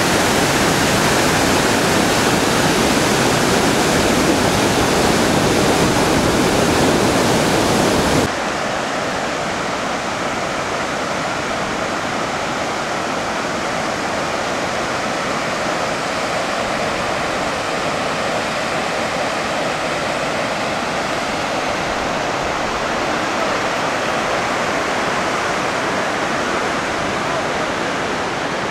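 Rushing water of a mountain torrent over rocks, a steady hiss-and-rush. About eight seconds in it cuts abruptly to a softer, quieter rush.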